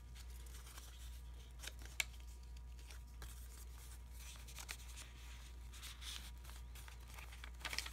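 Faint rustling of paper as a small paper envelope and card are handled and slid into a pocket of a handmade paper journal, with a few light ticks, the sharpest about two seconds in.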